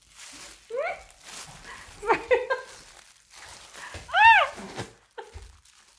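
Dachshund whining in short, high cries, some rising in pitch, the loudest an arched whine about four seconds in.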